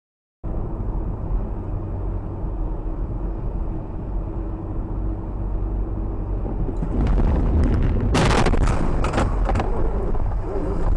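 A vehicle's road and engine rumble, starting suddenly, then several loud banging impacts in quick succession about eight to ten seconds in, as in a road collision.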